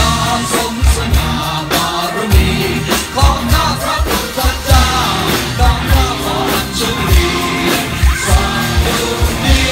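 Live music from a large ensemble of drum kits with a band, kick and snare hits landing together several times a second under singing voices.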